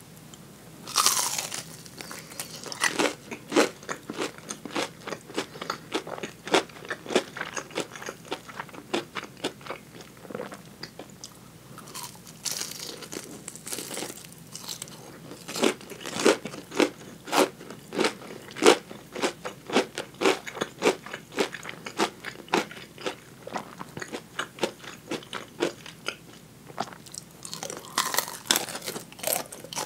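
Close-miked crunching bites into the crisp coating of deep-fried tulip chicken wings, then steady chewing at about two to three chews a second. The biggest crunches come about a second in, around halfway, and again near the end.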